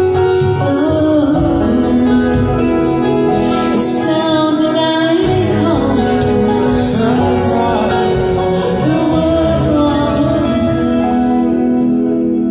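A song with voices singing over instrumental accompaniment, settling into a long held chord near the end.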